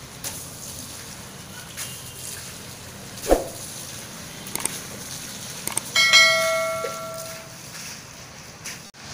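Subscribe-button animation sound effect: a few quick clicks, then a bell ding that rings out and fades over about a second and a half. It plays over steady outdoor background noise, with a single thump a little before the clicks.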